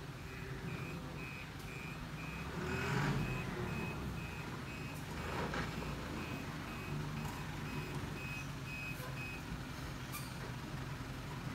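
Eicher tipper truck reversing: its reversing alarm gives short, high, evenly spaced beeps, a little under two a second, over the diesel engine's low running. The beeping stops near the end.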